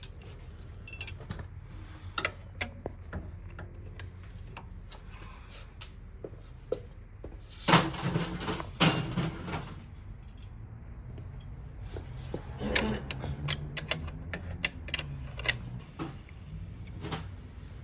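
Scattered knocks and clanks of tools and parts being handled, over a steady low hum. A louder clatter comes about eight seconds in, with a second one right after it.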